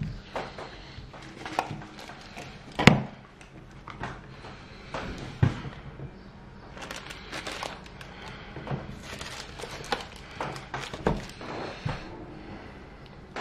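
Handling sounds as sheets of pastry are cut and pressed into a metal pâté en croûte mould on a silicone mat: scattered light knocks and clicks with soft rustling. One louder knock comes about three seconds in.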